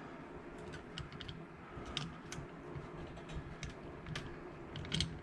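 Faint, irregular small metallic clicks and taps as a steel pin punch stuck through a Steyr AUG's aluminum receiver is wiggled and pulled out with pliers.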